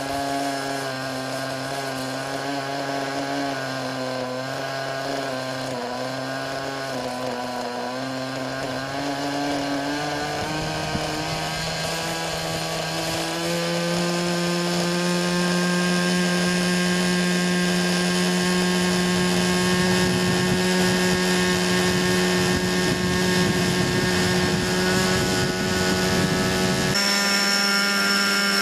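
Thunder Tiger Raptor 60 RC helicopter's two-stroke glow (nitro) engine and rotor running steadily, then spooling up with a rising pitch about ten seconds in and holding at the higher speed, with a further step up in pitch near the end.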